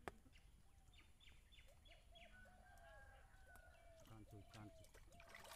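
A rooster crowing faintly, with a quick run of about five short, falling bird chirps just before it. A sharp click comes right at the start.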